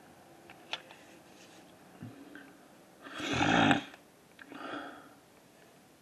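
A person's loud nasal breath close to the microphone, lasting under a second about halfway through, followed by a weaker breath about a second later.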